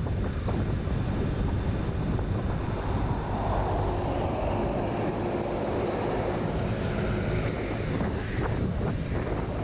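Steady wind rush buffeting the microphone of a moving Honda Vision 50 moped scooter, with the scooter's small engine and road noise beneath.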